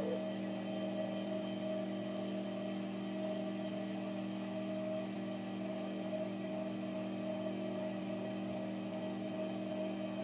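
Steady electric hum of an idling industrial sewing machine motor, running without stitching.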